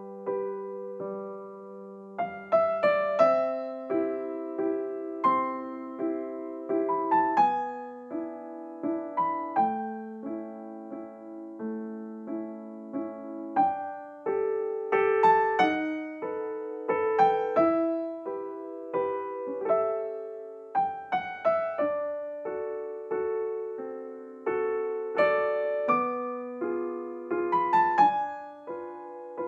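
Background piano music: a slow melody of struck notes over sustained chords, each note fading after it is played.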